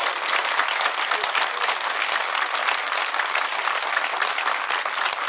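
Audience applauding steadily after a poem.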